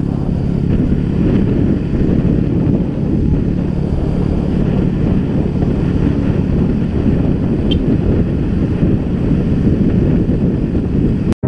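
Heavy wind buffeting the microphone while riding a motorcycle at road speed, with the engine's steady low hum underneath. It cuts off abruptly just before the end.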